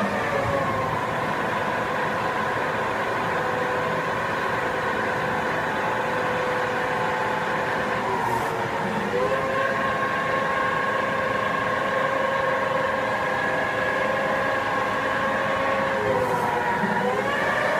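CNC lathe's spindle drive running with a steady multi-tone whine. Its pitch drops about half a second in, then dips and climbs back about halfway through and again near the end as the spindle speed changes.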